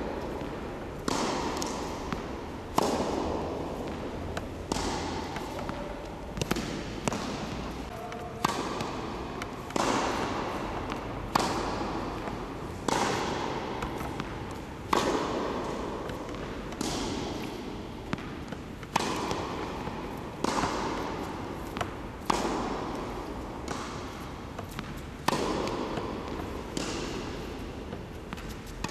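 A tennis racket strikes the ball again and again, a sharp hit every one and a half to two seconds. Each hit echoes through the large, empty hall.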